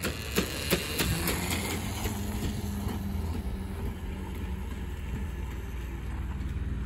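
Electric mini bike's 36-volt DC motor and chain drive running as it rides off, a steady low hum, with a few sharp clicks in the first second.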